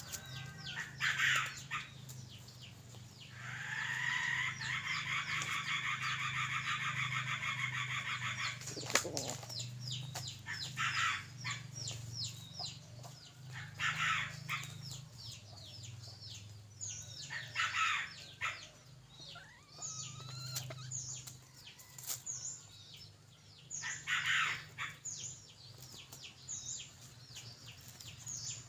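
Red junglefowl decoy rooster clucking and stirring as it pecks in dry leaves, not crowing. Small birds chirp, and a buzzing sound lasts about five seconds a few seconds in.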